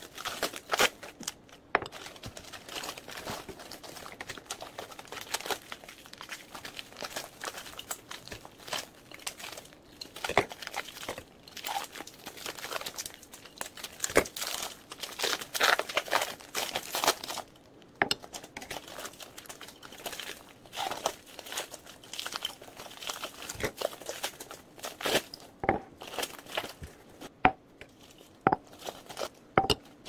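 Plastic packaging crinkling and rustling as glass mason jars are unwrapped by hand, with scattered sharp knocks throughout.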